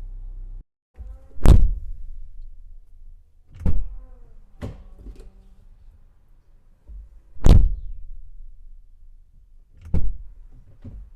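2026 Volkswagen Jetta car door being worked: two heavy slams shut, about 1.5 and 7.5 seconds in, with lighter clunks and latch clicks between them and one more clunk near the end.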